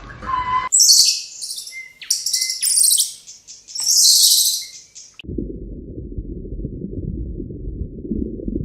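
A small bird chirping and trilling in quick, high-pitched phrases for about five seconds. This gives way to a low, steady rumbling noise.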